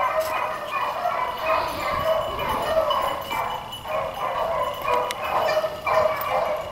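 A pack of beagles baying in full cry while running a rabbit: several hound voices overlapping in a steady run of short bays. This is the sign that the hounds are on the rabbit's scent line.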